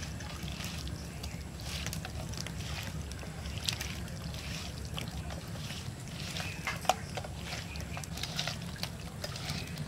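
Small wet fish being mixed with turmeric by hand in a steel plate: uneven squelching and rustling, with a couple of sharp clicks against the metal, one of them louder, near seven seconds. A low steady rumble runs underneath.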